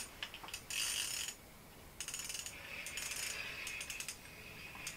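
Small spinning reel on an ice-fishing rod being cranked, a fast run of fine gear clicks from about two seconds in, after a few short clicks and a brief rustle.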